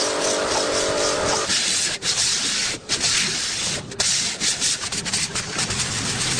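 An engine running steadily, cut off after about a second and a half by repeated rubbing or scraping strokes like sanding, with a few short breaks. The engine sound comes back at the very end.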